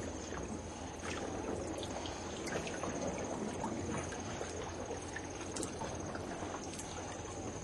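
Sea canoe being paddled through water: a steady sloshing and lapping of water around the boat, dotted with small drips and splashes. A faint, steady high-pitched whine runs underneath.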